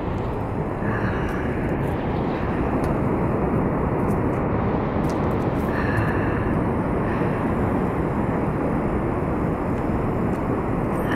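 Steady roar of the Yellowstone River's Lower Falls, a continuous rush of falling water.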